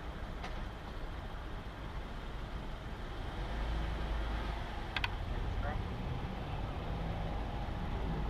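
Car engine running as the car creeps forward, heard from outside the car, with a low rumble that grows louder about three and a half seconds in. A sharp click about five seconds in.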